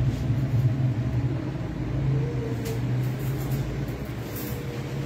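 A steady low hum with a rumble under it, and a few faint light clicks about halfway through and near the end.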